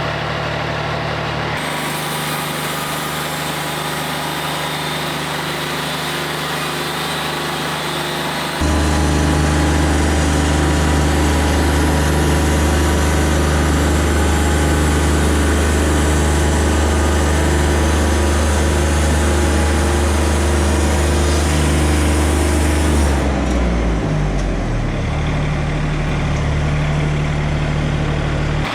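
Wood-Mizer LT40 Wide bandsaw mill running while sawing a white oak log. About a third of the way in the engine steps up to a louder steady run with the blade cutting. Near the end the engine winds down with a falling pitch and settles to a lower steady run.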